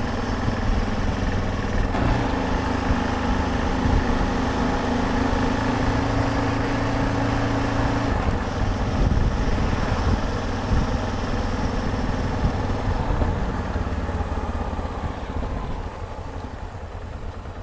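Yamaha XT660Z Ténéré's single-cylinder engine running steadily, growing quieter near the end.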